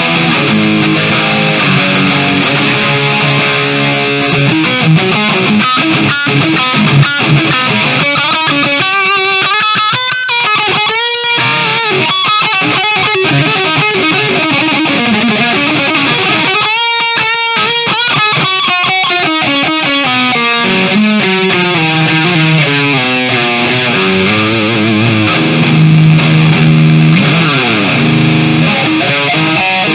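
Kramer Baretta Special electric guitar played through an amp on a heavily distorted setting with the volume turned fully up, recorded raw from the cabinet. The notes bend and waver with vibrato, with sliding pitches in the later part.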